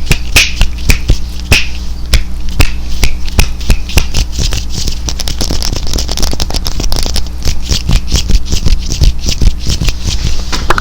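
Fast ASMR hand and mouth sounds: a rapid, uneven run of sharp clicks and snaps over a rustling, rubbing hiss, with a steady low hum underneath.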